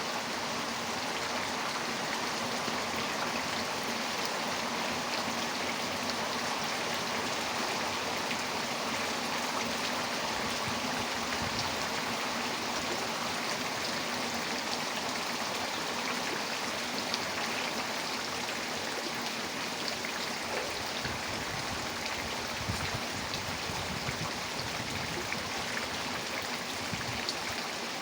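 Heavy rain falling steadily, a dense hiss of countless drops with scattered sharper drips. Low gusts of strong wind rumble in now and then through the middle and later part.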